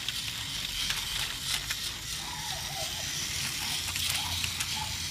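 Battery-powered motorized Thomas the Tank Engine toy train running on plastic track: a steady small-motor buzz with scattered light clicks.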